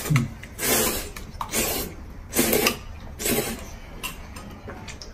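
Noodles being slurped up from a bowl of noodle soup, in about four short noisy slurps roughly a second apart.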